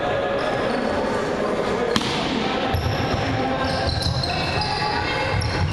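Basketball game sounds on an indoor court: the ball bouncing and players calling out, with a sharp knock about two seconds in.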